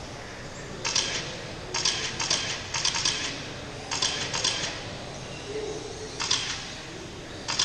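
Radio-controlled F1 race cars lapping the track, heard as short bursts of hissing noise, several in quick succession, as they pass close by, over a steady background hum of the hall.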